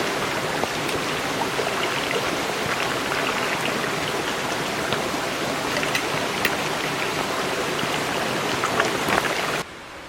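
Flowing stream water, a steady rushing with small sharp splashes, cutting off suddenly near the end to a much softer steady hiss.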